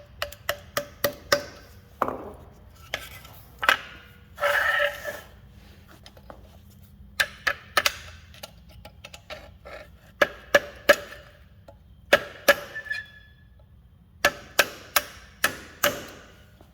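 A small sledgehammer striking a steel punch in quick groups of ringing metal blows, driving a small brake part into place. A short scraping noise comes between blows about four and a half seconds in.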